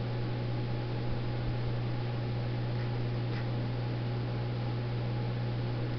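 Steady low electrical hum over an even hiss, with a few faint clicks about a second in and again a little past the middle.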